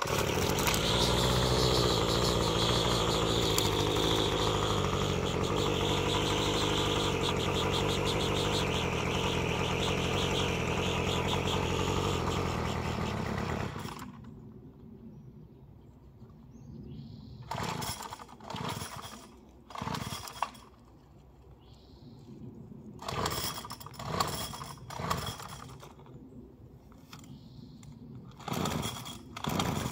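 Gas string trimmer engine running steadily, then cutting out about 14 seconds in. It is followed by a series of short bursts a second or so long as it is pull-started again.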